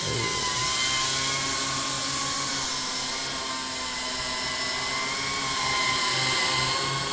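7-inch FPV quadcopter on eight-bladed propeller hubs (four props, 32 blades) hovering: a steady, low-pitched motor and propeller hum, its pitch wavering slightly with the throttle.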